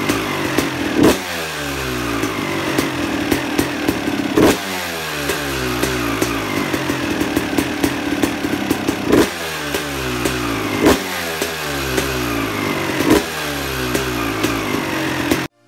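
Suzuki RM250 two-stroke dirt bike engine with a Pro Circuit R304 silencer, blipped five times: each rev rises sharply and falls back to idle, with steady idling between. The sound cuts off abruptly just before the end.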